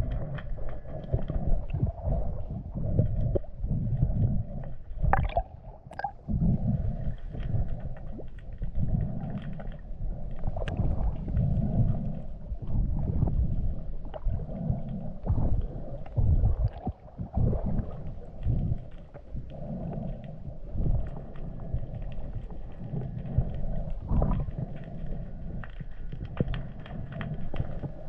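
Muffled underwater rumble and sloshing picked up by a camera in a waterproof housing as a diver swims, rising and falling irregularly with dull low thumps and a few faint clicks.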